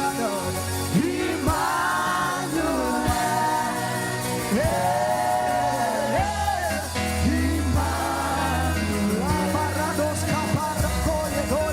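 Gospel worship music: a voice sings long, sliding notes over a band with a steady bass line.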